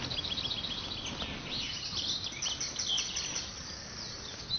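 Birds chirping: a rapid run of short, high, downward-sweeping chirps, over faint background noise.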